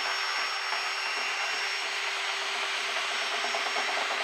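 Electric motor of a dryer-vent cleaning tool running steadily at full speed, a rushing hiss with a constant high whine and a low hum.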